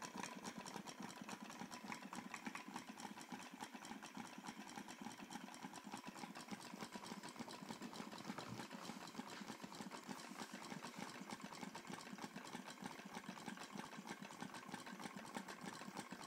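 Homemade tin-can Stirling engine, with a balloon diaphragm and a CD flywheel, running on the heat of tea lights: a faint, steady, rapid mechanical ticking.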